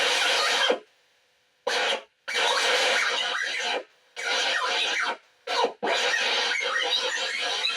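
Harsh, scratchy noise in abrupt blocks that cut off sharply, with short silent gaps between them, then running on without a break from about six seconds in.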